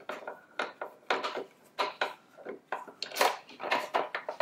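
Screwdriver working the mounting screw of an e-bike's speed sensor on the chainstay, to take the sensor off: a run of short, irregular scraping and clicking strokes of metal on metal.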